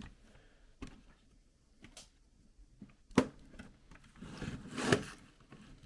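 Plastic clips of a laptop palm rest snapping loose as it is pried from the bottom case with a plastic opening pad: a few sharp clicks, the loudest about three seconds in, then plastic scraping on plastic near the end.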